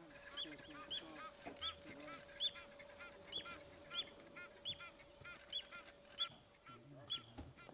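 African wild dogs twittering: a steady run of short, high-pitched, bird-like chirps, two or three a second, with some lower whines mixed in. This twittering is their social call among pack members.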